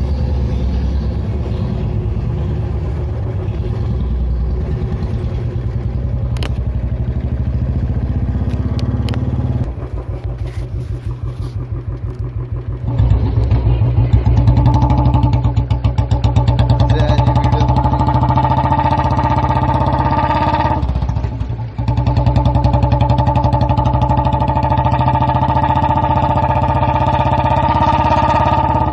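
Royal Enfield Bullet 350's single-cylinder engine running with its slow, pulsing exhaust beat. It drops quieter for a few seconds about ten seconds in, then picks up louder and steadier from about 13 s, with a brief dip in throttle around 22 s.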